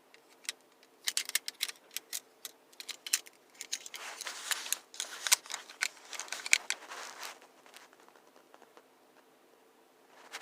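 Folding multi-tools being handled: a run of sharp metal clicks and snaps with stretches of rustling, stopping about seven and a half seconds in.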